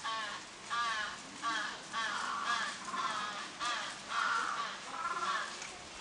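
An animal calling over and over, short harsh calls each sliding slightly down in pitch, about three every two seconds.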